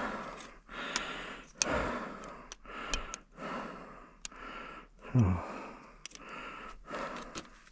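A man breathing heavily and steadily, about one breath a second, with a short voiced grunt about five seconds in and a few small clicks of handling.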